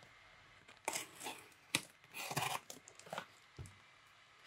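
A thin metal blade slitting the plastic wrap and tape along the edge of a cardboard parcel: several short, irregular scratchy rasps and crackles of film and cardboard, with a soft knock of the box near the end.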